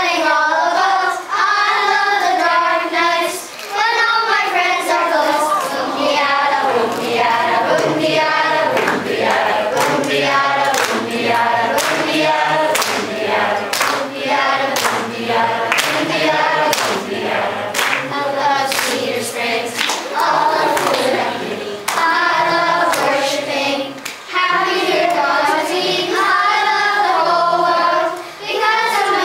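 Group of young children singing a song together in unison. Through the middle stretch, sharp hand claps keep a steady beat under the singing.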